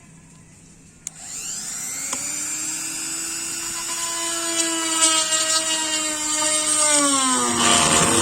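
A small power tool's electric motor starts with a click about a second in and spins up to a steady whine. The pitch sags near the end, then the motor cuts off.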